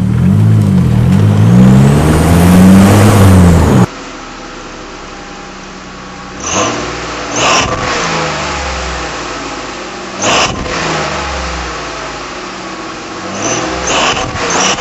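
Car engine and exhaust fitted with a clip-on fake turbo whistle at the muffler tip. For the first four seconds the engine is loud and revs up and down, with a faint high whistle rising and falling, and this cuts off suddenly. After that it idles more quietly, and four quick throttle blips each bring a short high whistling hiss.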